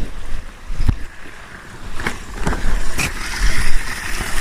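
Low wind rumble on the microphone, with four short sharp knocks spread through it.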